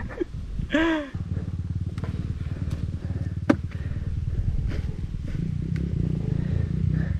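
Dirt bike engine with an open exhaust pipe running steadily at low revs with a fast low putter, setting in about a second in just after a short shout, with a couple of sharp clicks over it.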